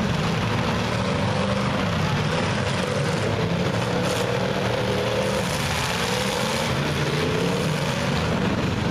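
Several open-header race car engines running together in a loud, steady wash of engine noise, their pitch rising and falling as the cars speed up and slow down.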